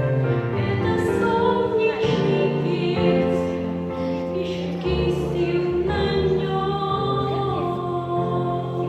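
Music with singing: a slow, classical-style vocal line with held notes over sustained accompaniment.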